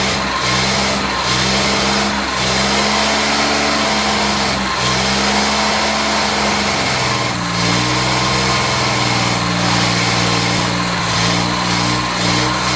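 Jaguar Mk II's XK straight-six engine running unevenly, its speed wandering up and down. The owner says it is not right and sounds like the timing is off or it is not firing on all cylinders.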